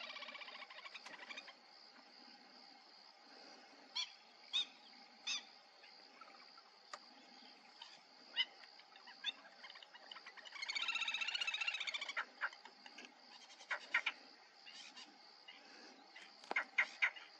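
Outdoor birdsong: scattered short, sharp call notes, a louder, longer rich call about ten to twelve seconds in, and a quick run of notes near the end, over a steady faint high hum.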